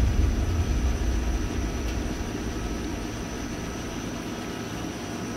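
Low engine rumble in the distance, slowly fading away, with a faint steady high-pitched whine throughout.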